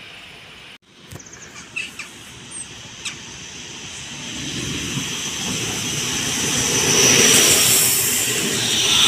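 Koleje Mazowieckie electric multiple unit approaching and passing close at speed: the rumble of wheels on rail and rushing air builds from about four seconds in and is loudest near the end, with a thin high whine over it.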